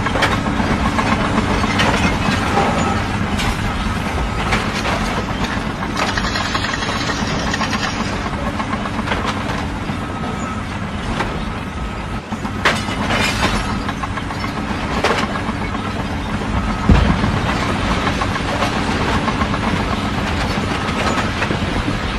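Heavy diesel machinery running steadily, with several sharp knocks and clatter in the second half.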